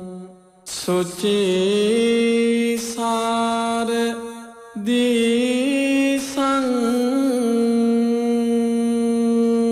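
A Buddhist monk chanting Pali verse in long, held, steady notes. There are two drawn-out phrases, with a brief pause for breath just before the middle.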